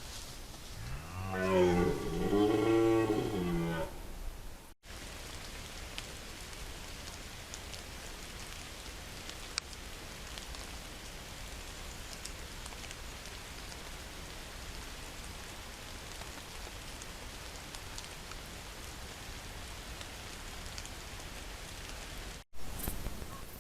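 A wild animal's long, low call lasting about three seconds, rising and falling in pitch, then a steady hiss with a few faint ticks after the recording breaks off.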